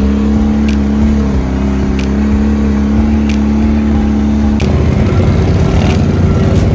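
ATV engine running at a steady pitch on a rough trail, with a sharp knock now and then. About two-thirds of the way in, the sound changes abruptly to a rougher, noisier engine running.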